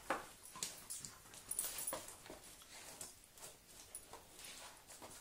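A Doberman chewing and mouthing her rope toy: irregular soft clicks and rustles.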